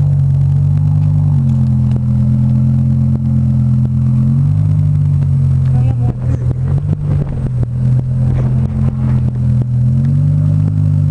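BMW M6's V10 through an Eisenmann aftermarket exhaust, running low and steady near idle, its pitch rising a little a few times as the car creeps away without being revved.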